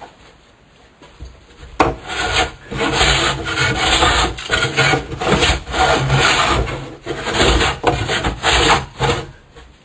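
Block plane shaving the edge of a wooden door in about a dozen quick back-and-forth strokes, starting about two seconds in: trimming the door to fit.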